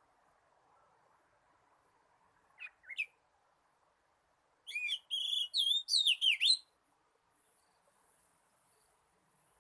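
Oriental magpie-robin singing: two short rising call notes, then about a second and a half later a quick, varied phrase of clear whistled notes.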